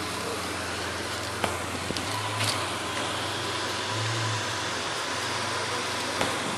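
Lamborghini Aventador SV's V12 idling steadily with a low hum, its pitch lifting slightly for brief spells a couple of times. A few faint clicks sound over it.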